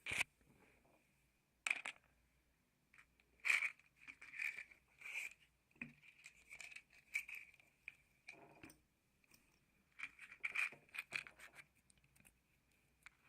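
Matchsticks and a matchbox handled close to the microphone: an irregular series of short scrapes, taps and rustles, with a faint steady high whine underneath.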